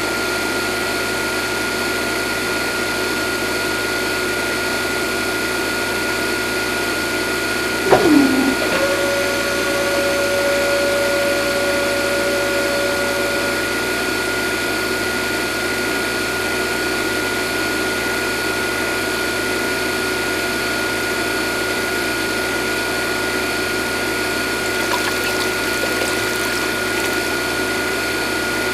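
Small electric water pump running steadily with a constant whine while water flows. About eight seconds in there is a brief falling whine, then a higher tone that holds for about five seconds.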